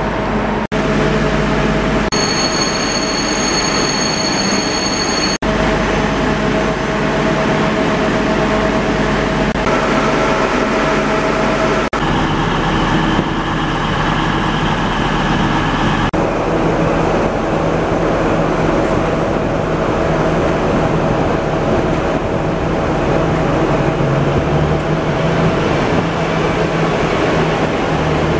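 East Midlands Trains diesel trains, an HST with its Class 43 power car and a Meridian, idling at the platform. Their engines give a steady drone with a low hum. A high steady tone sounds for about three seconds a couple of seconds in, and the sound jumps at several cuts.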